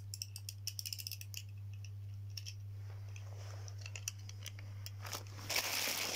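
Clockwork of a small plastic wind-up chattering teeth toy being wound, giving rapid dry ratchet clicks for the first second and a half, then scattered clicks. A louder rustling noise starts near the end, over a steady low hum.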